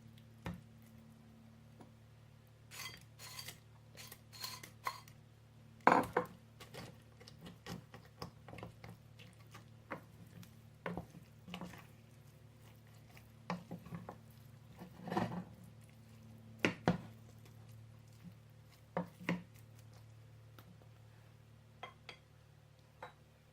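A metal spoon knocking, clinking and scraping against a cooking pot at irregular moments as dried injera pieces are stirred into the sauce for dirkosh firfir, over a faint steady low hum.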